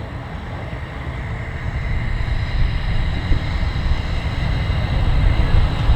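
Low engine rumble that grows steadily louder, with a faint steady whine above it.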